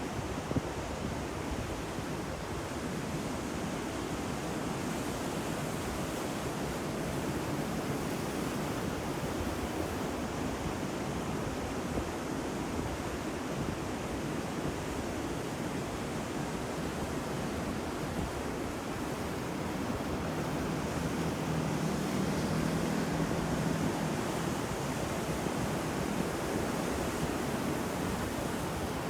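Ocean waves breaking on a shore: a continuous wash of surf, swelling a little louder about two-thirds of the way through.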